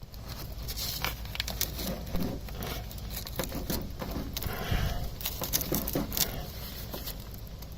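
Irregular clicks, light knocks and rustling of hand work on bus parts and wiring, over a steady low hum.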